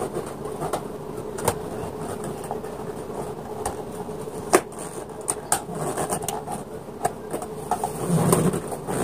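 Clear acrylic hamster cage panels being handled and fitted together: scattered light clicks and knocks of hard plastic on plastic over a faint steady hum.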